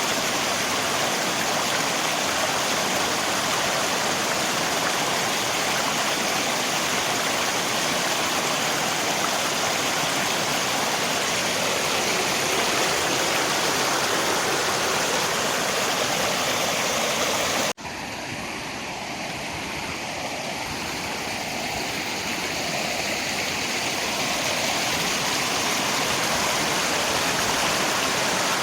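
Steady rushing of river water with rain. About two-thirds of the way through it cuts out for an instant and returns quieter and thinner, then slowly swells back to full level.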